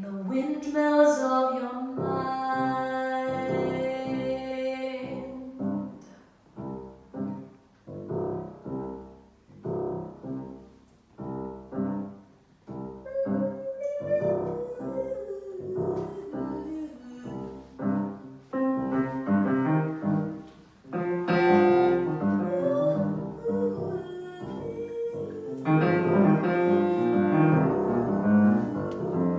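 Saxophone and grand piano playing a slow jazz ballad instrumental passage: a long held saxophone note a couple of seconds in, then piano chords, the playing growing fuller and louder in the second half.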